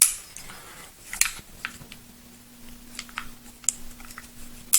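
Several sharp, spaced metallic clicks from a CZ 75 SP-01 pistol's safety and hammer being worked by hand during a function check, the safety still a little stiff to engage after its adjustment screw was turned. A faint steady hum comes in about two seconds in.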